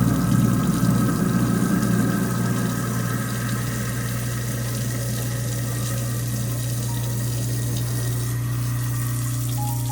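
Water running from a kitchen tap into the sink, heaviest in the first few seconds and then steadier, over a continuous low hum.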